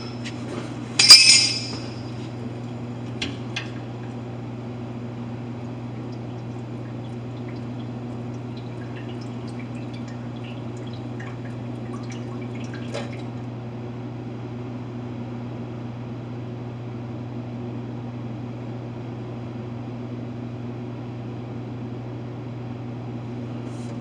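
Water running steadily through a drinking fountain and down its drain, over a constant low hum, with one sharp metallic clink about a second in.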